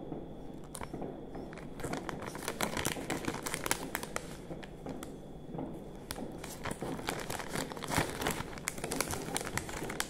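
Crinkly plastic packaging of Loacker ice-cream biscuits being handled and rummaged through. It gives a dense, irregular crackling and rustling, busiest from about two seconds in.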